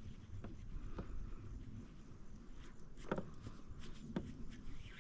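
A few faint knocks and clicks over a low, steady rumble.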